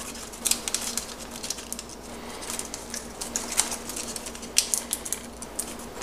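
Origami paper being handled close up as a flap is opened and squash-folded: irregular crisp crackles, taps and rustles of the folded paper.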